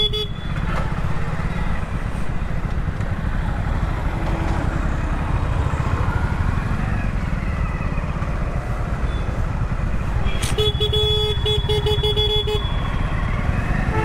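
Two-wheeler riding through slow city traffic, a steady low rumble of engine and road noise. A vehicle horn honks briefly at the start and again for about two seconds about ten seconds in.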